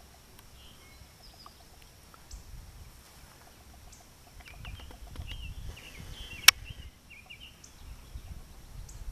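Outdoor rural ambience: scattered faint bird chirps, a steady high insect drone, and intermittent low rumble on the microphone, with one sharp click about six and a half seconds in.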